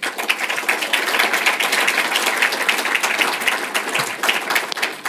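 Audience applauding: many people clapping at once. It starts suddenly and thins out to a few scattered claps near the end.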